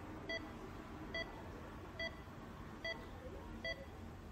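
Patient monitor beeping in time with the heartbeat: five short, evenly spaced beeps a little under a second apart, about 70 a minute.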